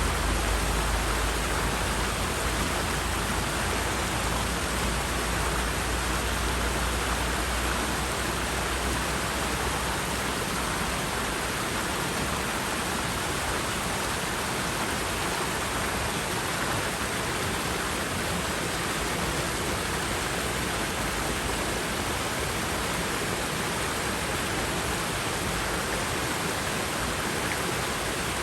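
River water rushing steadily over its bed, an even unbroken hiss. A low rumble sits under it for about the first third, then fades away.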